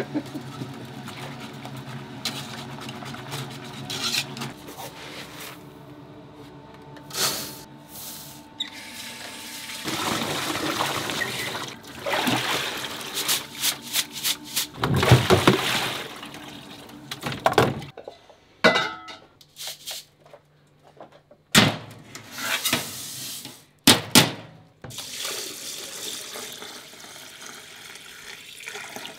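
Restaurant kitchen work: water running from a tap in spells, with a few sharp knocks, over a steady hum.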